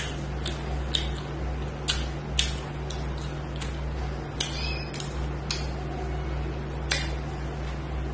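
Close-up eating sounds: fingers mixing rice and curry on a steel plate, then a mouthful being chewed, with short sharp wet clicks and smacks every second or so over a steady low hum.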